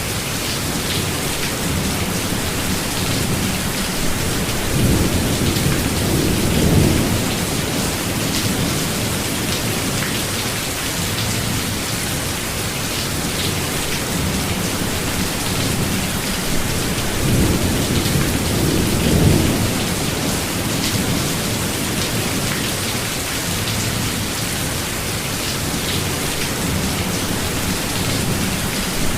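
Steady rain pattering down, with two low rolls of thunder swelling and fading, one about five seconds in and another around two-thirds of the way through.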